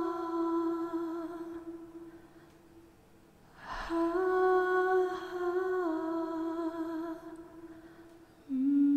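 A woman humming slow, long held notes. The first note fades out about three seconds in; after a short gap she hums another that steps down in pitch partway through, and a lower note begins just before the end.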